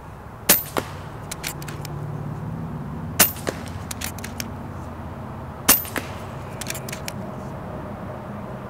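FX Dreamline pre-charged pneumatic air rifle firing repeatedly, a sharp crack about every two and a half seconds. Each crack is followed by a few lighter clicks.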